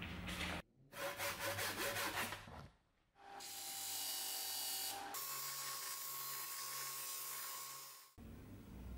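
Disc of a bench belt and disc sander running while the end of a beech axe handle is sanded against it, a steady grinding noise that cuts off after about five seconds. Before that comes a couple of seconds of quick rhythmic scraping strokes on wood.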